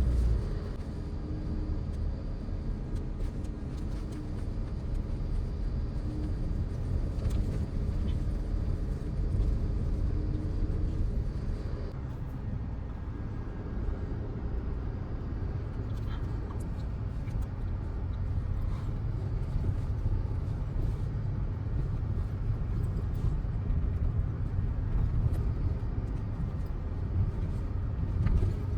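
Audi Q5 driving: a steady low rumble of engine and road noise, with a faint hum that stops about twelve seconds in.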